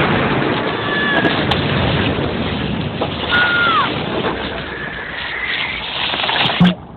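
Cartoon sound effects of a glacier breaking apart: a continuous rumbling crash of cracking ice. A short squeal falls in pitch about three seconds in, and a heavy thump near the end cuts the din off suddenly.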